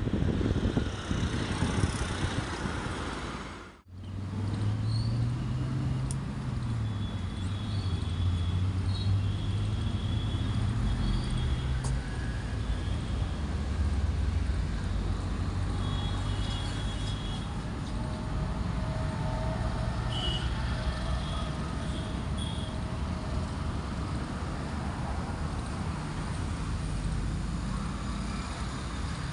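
Low motor-vehicle engine rumble over steady outdoor background noise, the engine note slowly rising and falling; the sound briefly drops out about four seconds in.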